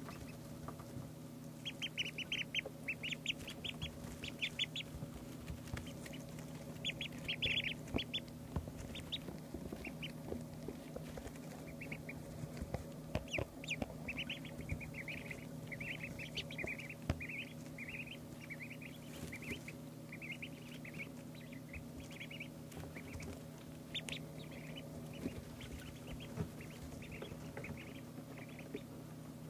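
Two-day-old ducklings peeping: runs of short, high chirps repeated rapidly throughout, over a steady low hum and a few light taps.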